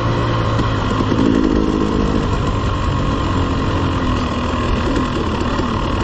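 Dirt bike engine running along a trail, its note rising and falling as the throttle changes.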